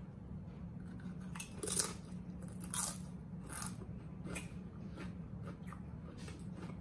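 Doritos tortilla chips crunching as they are chewed, a series of sharp crunches spaced roughly a second apart.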